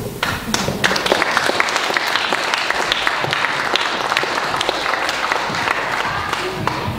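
Audience applauding: dense, even clapping that breaks out at once as the singing ends and holds steady. Low thuds come in near the end.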